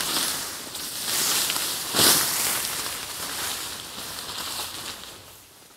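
Tarp fabric rustling and flapping as it is pulled out and shaken open, with one sharp flap about two seconds in. The noise dies away near the end.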